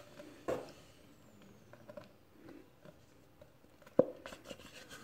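Soft rustling and a few light clicks as a crochet hook pulls T-shirt yarn through a hole in a plywood basket base, with one sharper click about four seconds in.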